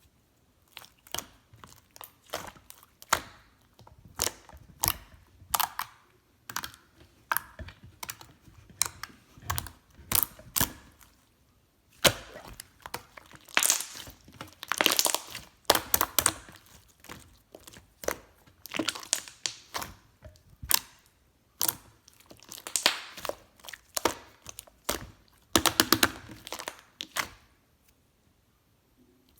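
Pink slime being squished and pressed by hand, giving off irregular sticky clicks and pops that come in busy clusters with short pauses between.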